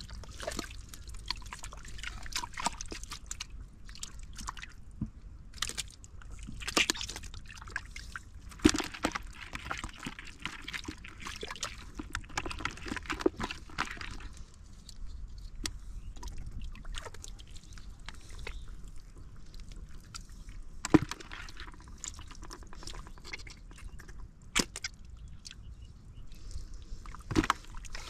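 Hands sloshing and splashing in shallow muddy water, with scattered irregular wet clicks and small splashes.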